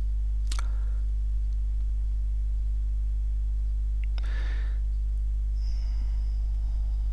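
Steady low electrical hum, with two brief faint noises about half a second in and about four seconds in.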